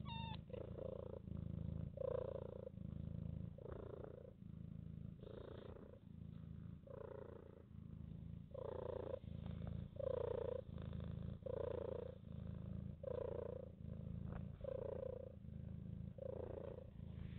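A mother cat purring steadily while her newborn kittens nurse, the purr swelling with each breath about once a second.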